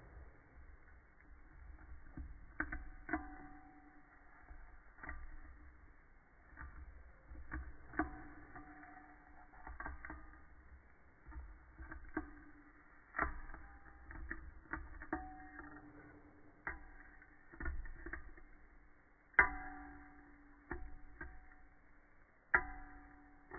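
Metal teaspoon stirring tea in a ceramic mug, knocking against the side again and again, each clink leaving a low ring that lingers for about a second. Two louder clinks come near the end.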